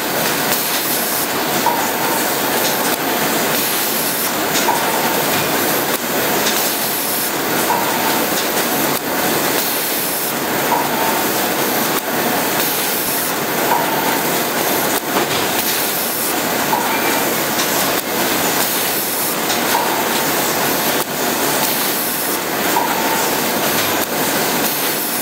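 Automatic rigid box making machine running: a dense, steady mechanical clatter mixed with compressed-air hiss, with a short tone or squeak repeating about every three seconds.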